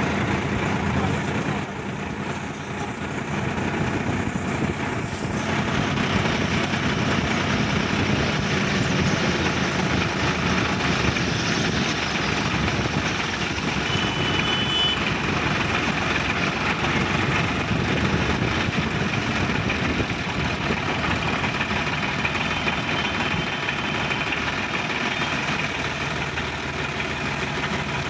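Sonalika DI-50 RX tractor's diesel engine running steadily as the tractor drives along, heard from the driver's seat.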